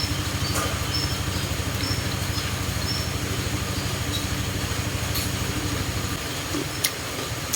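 A low motor drone runs steadily with a fast even pulse and eases off about six seconds in. A few short high chirps and a sharp click near the end sit over it.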